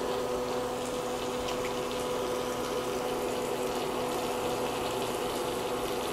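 Floured cube steak frying in butter and oil in a skillet over medium-high heat, a steady sizzle with a faint steady hum underneath.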